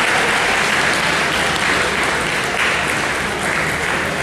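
Audience applauding: dense, steady clapping with a few louder swells.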